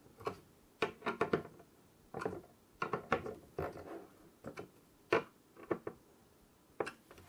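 Phillips screwdriver firming down the coarse-thread screws of a CPU cooler's metal mounting plate into the motherboard backplate: irregular short clicks and scrapes of the driver in the screw heads, with light knocks as the board is steadied.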